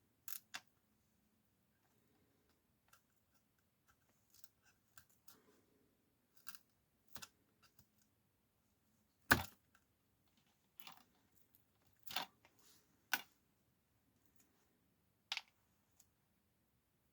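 Small hand tool clicking and scraping against a tablet's frame as old screen adhesive is picked off: scattered light clicks and short scrapes, with a sharper knock about nine seconds in.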